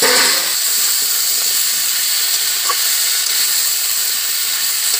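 Cut pumpkin sizzling in hot oil and fried spice paste in a kadai: a steady frying hiss, loudest in the first half-second.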